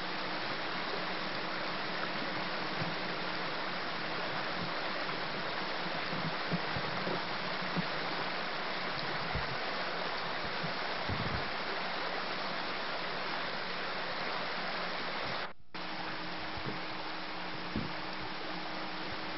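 Shallow rocky creek running over stones: a steady rush of water. The sound drops out briefly about three-quarters of the way through.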